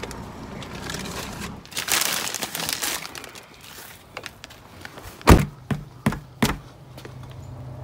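Crinkling rustle, then four sharp knocks in quick succession, the first the loudest.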